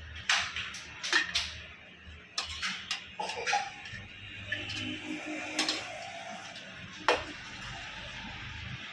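A spoon clinking and scraping against cooking pots and a plate as rice and curry are served out: a scattering of separate knocks and scrapes.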